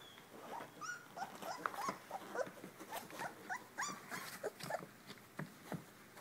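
Three-week-old puppies in a litter making many short, high squeaks and whines that overlap one another.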